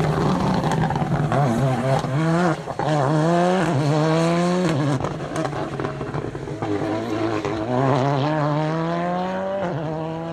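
Volkswagen Polo R5 rally car engine accelerating hard through the gears. The pitch climbs steadily in each gear and drops sharply at three upshifts.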